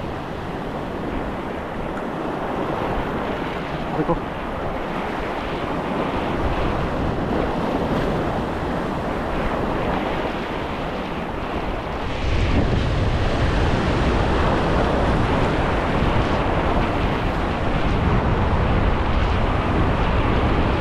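Sea waves breaking and washing over rocks along a rocky shoreline, with wind rumbling on the microphone; the low rumble grows stronger about twelve seconds in.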